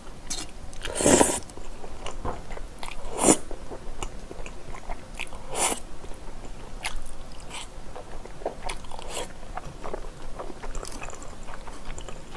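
A person slurping and chewing a mouthful of saucy glass noodles and bulgogi, with three louder slurps about one, three and nearly six seconds in and soft wet chewing clicks between.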